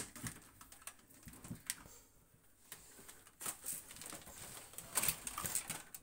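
Scattered light clicks, knocks and rustles at an irregular pace: an upright vacuum cleaner and its cord being handled while it is still switched off.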